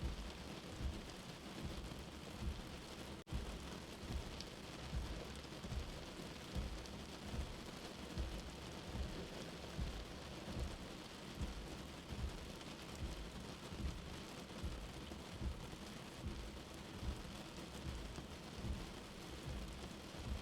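Steady rain, as heard from under shelter, with a soft, low heartbeat thumping in an even rhythm about every 0.8 seconds. There is a momentary dropout about three seconds in.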